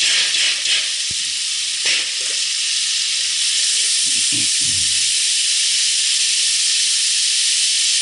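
A large batch of sliced onions sizzling steadily and loudly in hot fat in a big aluminium stockpot as they start to fry, stirred with a wooden spatula, with a couple of scrapes and knocks in the first two seconds.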